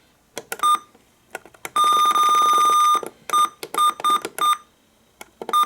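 Weather radio key beeps while its date setting is being changed: button clicks and a short beep, then one long steady beep of about a second, then a quick run of short beeps on the same pitch.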